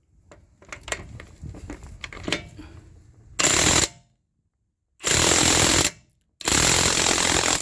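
No-name 20 V brushless cordless impact wrench hammering on car lug nuts in three bursts, short, longer, then longest, after a few seconds of light clattering as it is set on the nut.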